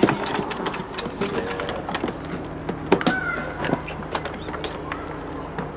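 Scattered clicks and knocks of hands handling a small aluminium box and its latches, over a steady low hum, with a brief high chirp about three seconds in.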